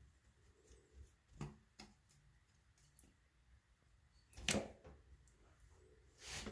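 Light clicks and knocks of hand work on a metal pipe fitting, a few short ones, with the loudest knock about four and a half seconds in and another near the end.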